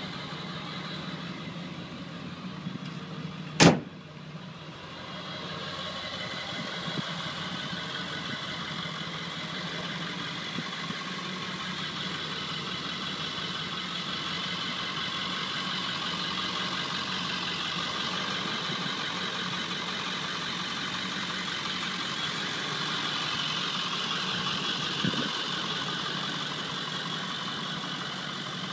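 Ford 7.3 Powerstroke V8 turbo diesel idling steadily, with one sharp bang a little under four seconds in.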